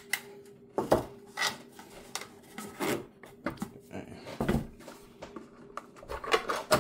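Hard 3D-printed plastic trays and a mesh screen frame being handled, fitted together and set down: a series of irregular light knocks and clicks with some rubbing between them.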